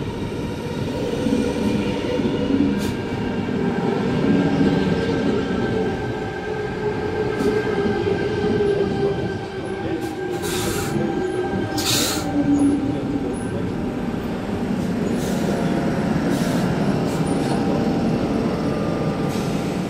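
Sydney Trains electric suburban train running slowly along the platform, with a steady whine from its motors and the rumble and squeal of wheels on rail. Two short hisses of air come about halfway through.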